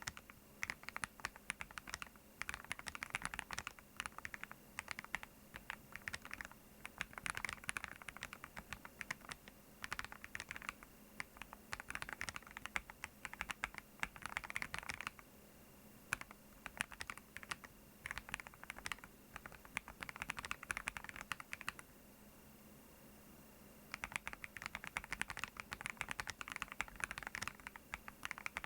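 Keystrokes on a meteorite40 keyboard: runs of rapid typing with a short pause about halfway through and another about three quarters of the way in.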